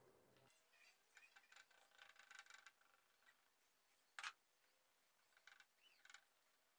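Very faint clicks and small scrapes of hands working a plastic glue bottle over a wooden mandolin rim, with one sharp tap a little past four seconds in and a few light ticks after it.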